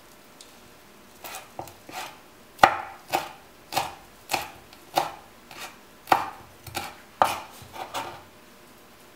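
Kitchen knife chopping fresh dill on a wooden cutting board: a run of sharp knocks, about two a second, starting about a second in and stopping shortly before the end.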